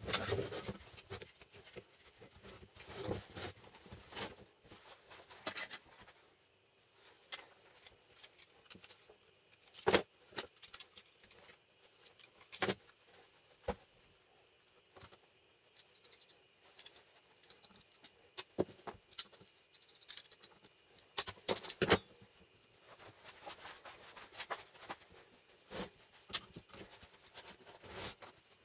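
Bench handling noises: scattered clicks, taps and knocks as gloved hands cut at a thick insulated cable with a knife and feed it through a square steel tube. A faint steady high tone runs through the middle.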